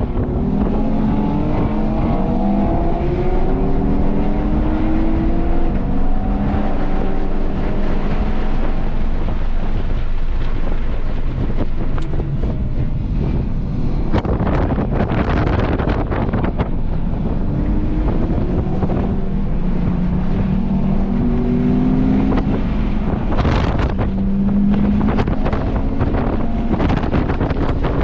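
Car engine heard from onboard, rising in pitch several times as it accelerates through the revs, under heavy wind buffeting on the microphone.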